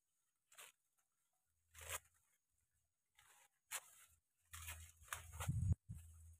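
Dry corn leaves rustling and tearing as they are stripped by hand from the stalks. They come in short separate bursts that get busier and louder towards the end.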